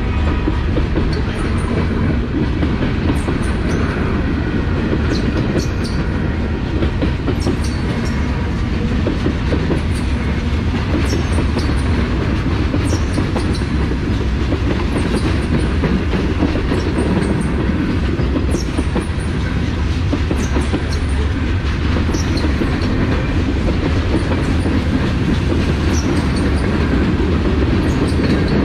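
Freight train's covered hoppers and tank cars rolling past close by: a steady loud rumble of steel wheels on the rails, with scattered sharp clicks from the wheels.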